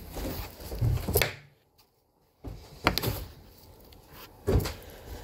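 Whole dragon fruits handled and set down on a table right by the microphone: about three knocks over a few seconds, with a short near-silent gap after the first.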